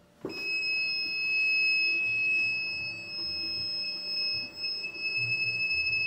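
A power inverter's low-voltage alarm sounds one continuous high-pitched tone, starting a moment after it is switched on. It is warning that the 12 V battery feeding it is not fully charged, at about 11 volts.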